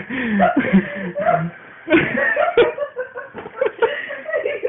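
People laughing in short bursts, mixed with bits of indistinct talk.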